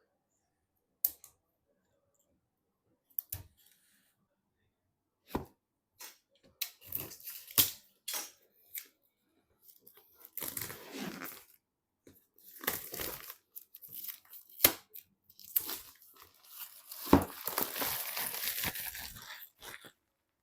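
Packaging being handled and torn, with stretches of tearing and crinkling, the longest near the end, between scattered sharp clicks and knocks.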